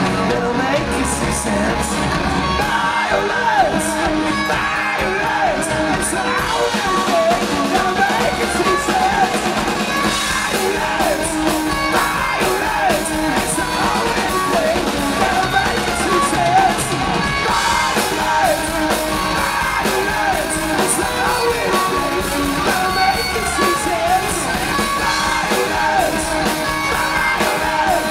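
Live rock band playing: electric guitars, bass and drums under a sung lead vocal, continuous and steady in level.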